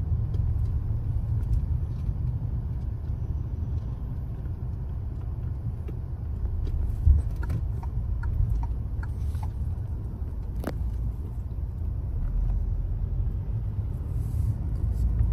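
Low, steady rumble inside a car's cabin as it drives slowly in city traffic, with a few faint clicks and a short thump about halfway through.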